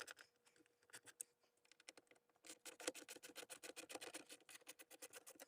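Rapid, even clicking of a ratcheting bit driver with a Torx bit, working loose the screws that hold a truck's factory subwoofer, in short runs with the heaviest run in the second half.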